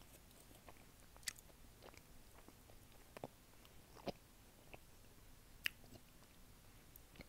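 Close-miked mouth sounds of someone chewing a chocolate buttercream: a handful of soft, sharp mouth clicks and smacks a second or so apart, the loudest about a second in and again near the end, over a quiet background.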